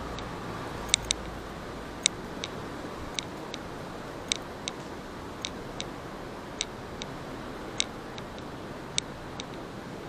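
Light, sharp ticks, mostly in pairs about once a second, keeping time with a person walking, over a steady hum of city street noise.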